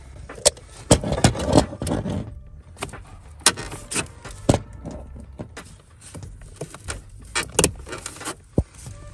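Irregular sharp clicks, clacks and knocks of hand work, with tools and metal and plastic parts handled, as a heater blower motor is fitted back into place. A quick cluster of knocks comes about a second in, then single clicks follow every half second or so.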